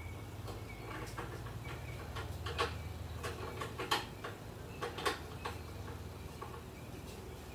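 Scattered light clicks and knocks of metal parts being handled and fitted on a mini bike's front end, with three sharper clicks about two and a half, four and five seconds in, over a steady low hum.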